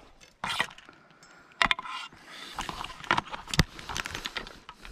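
Handling noise from fly-fishing gear: a few sharp clicks and taps with light rustling between them.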